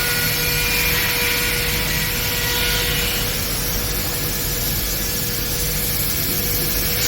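MAKA M 7t wood CNC machining centre running: a steady mechanical whine with several held tones over an even rushing noise, unchanging throughout.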